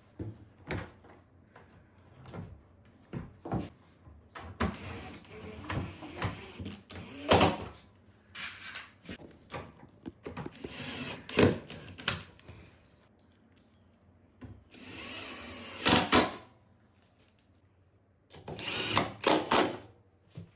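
Cordless drill-driver running in four short bursts of one to three seconds, driving the hinge screws to hang a door, with scattered knocks and clicks between the runs.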